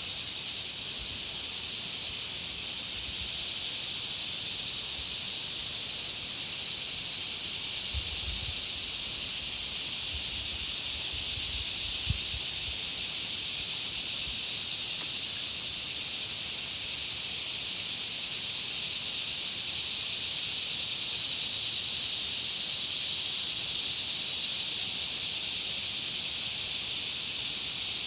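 Dense, steady chorus of insects around a country pond, an unbroken high-pitched buzzing trill. A few low bumps and one sharp click come about halfway through.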